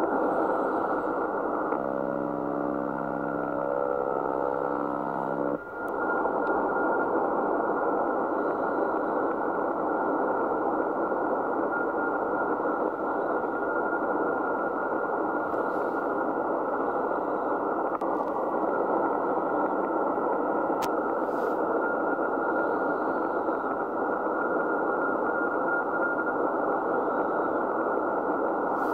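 Icom IC-7600 transceiver's receiver audio on the 40 m CW band: steady band-noise hiss through a narrow filter. For a few seconds, starting about two seconds in, a buzzing interference tone sits over the hiss and then cuts off abruptly.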